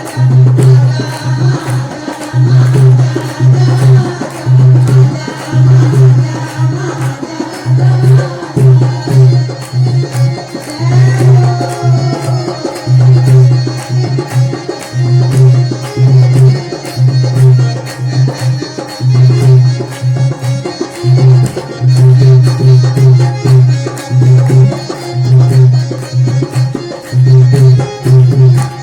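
Punjabi folk song: a hand drum keeps a steady, driving rhythm with a deep bass stroke, under a melody with a singing voice.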